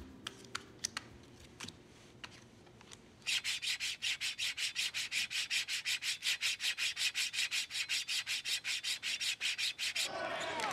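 Faint clicks of playing cards being dealt, then about three seconds in a hacksaw starts cutting with fast, even back-and-forth strokes, about four a second, until just before the end.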